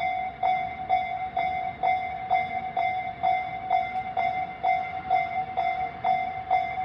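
Japanese level-crossing warning bell of the Tobu Tojo-line type, an electronic ding repeating steadily a little over twice a second, the signal that the crossing is closed for an approaching train.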